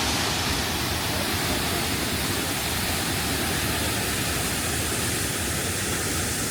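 Steady rush of a large waterfall: water pouring and crashing without a break.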